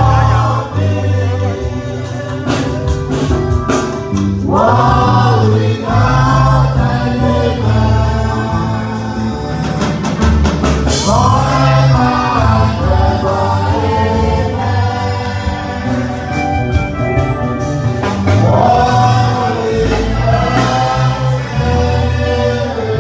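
Gospel choir singing over a steady low beat from bass and drums.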